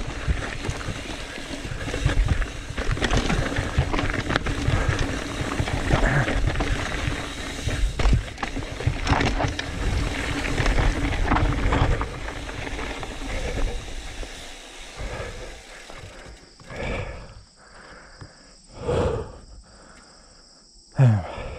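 Trek Fuel EX 7 full-suspension mountain bike clattering and rattling over rocks at speed on a steep descent, with wind rushing over the microphone. About two-thirds through it slows and goes quieter, leaving a few single louder sounds, likely the rider breathing hard.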